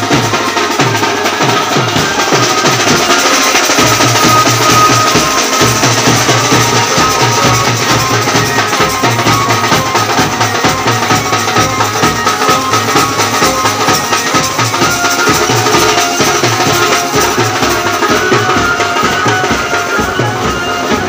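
A group of large double-headed dhol-style drums beaten with sticks, playing a steady, dense folk beat without a break.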